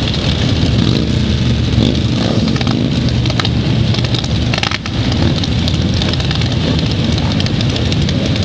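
A long column of motorcycles, mostly sport bikes, riding past in a steady stream, their engines running together in one continuous sound.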